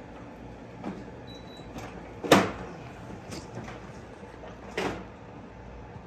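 A few short knocks of hard objects: the loudest about two seconds in, a smaller one near five seconds, and two faint ones between, over a steady low background hum.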